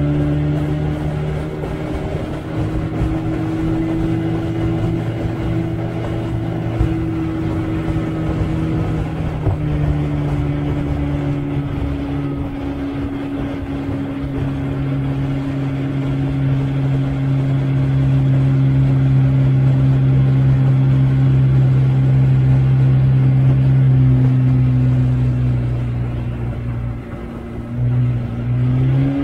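Tiller-steered outboard motor on a small aluminium boat running steadily under way at speed. Its pitch shifts slightly now and then, and near the end the throttle eases off briefly before the pitch rises again.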